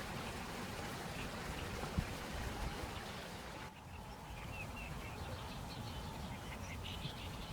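Steady outdoor background noise with a low rumble, and faint short chirps coming in from about halfway through.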